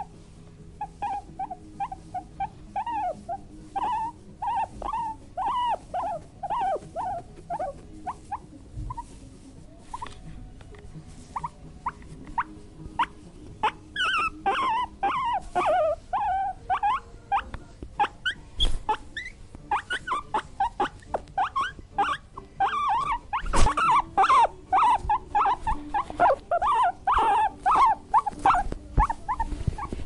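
Guinea pig squeaking in a long series of short, pitched calls, several a second, with a denser, higher-pitched run about halfway through and steady calling in the last third. A few sharp knocks come in between, the loudest about two-thirds of the way through.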